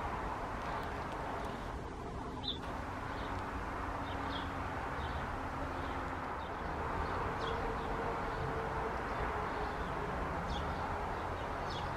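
Faint, short, high bird chirps every second or two over a steady background hum of outdoor noise.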